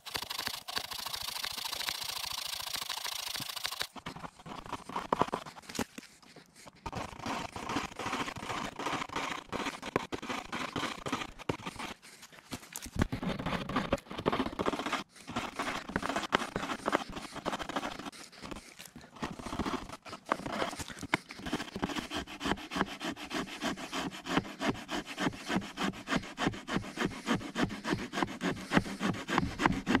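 Victorinox Swiss Tool multitool's folding saw blade cutting through a thick dead branch by hand, a rasp at each back-and-forth stroke. The strokes run together into a continuous rasp for the first few seconds, then fall into a regular rhythm of about two to three strokes a second near the end.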